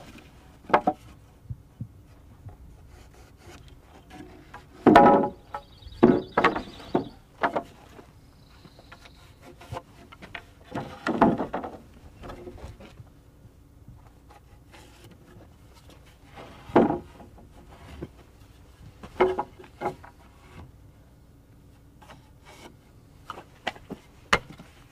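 A pencil and a rafter pattern scraping and knocking on a stack of lumber while plumb-cut lines are marked across the boards: irregular rubs and taps, a few of them louder.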